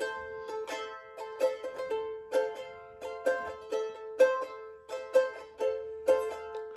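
Tahitian ukulele strummed alone, with bright rhythmic strums over a ringing repeated note and no singing.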